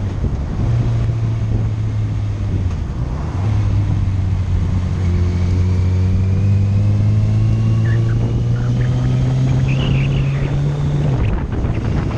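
Motorcycle engine running under way, heard from the bike with wind noise on the microphone. The engine note climbs slowly and steadily for several seconds as the bike accelerates, then drops suddenly about eleven seconds in.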